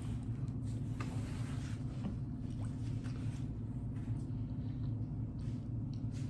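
Close-up eating sounds: a person chewing and smacking food with small wet, squishy mouth noises, over a steady low hum.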